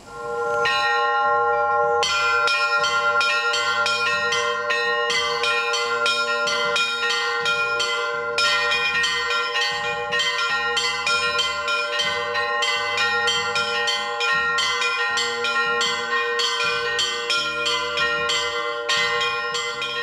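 Church bells ringing in a continuous peal, many quick strikes on small high bells over long-ringing middle bells and a repeating pattern of deeper strokes. The ringing starts about a second in.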